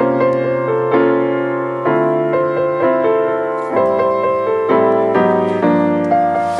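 Soft background piano music: slow chords and melody notes struck about every half second to a second.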